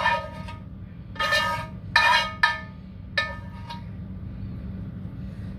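A metal spoon clinking against cookware about five times, sharp ringing taps as sautéed onions are spooned out of a saucepan, over a low steady hum.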